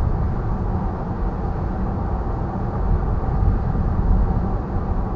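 Steady road and engine rumble of a moving car heard from inside the cabin.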